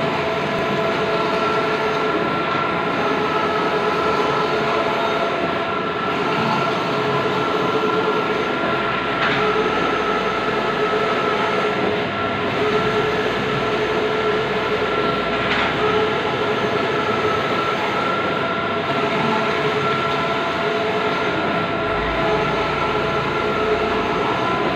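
Large-format outdoor digital printer running: a steady mechanical whirr with several steady tones and an occasional faint tick.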